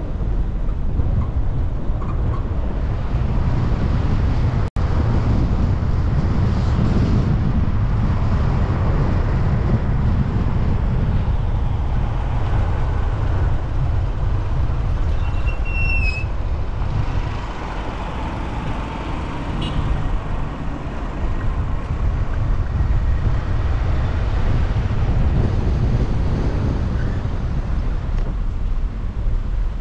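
Steady low rumble of wind on the microphone mixed with road traffic, with a split-second dropout about five seconds in and a short high chirp about sixteen seconds in.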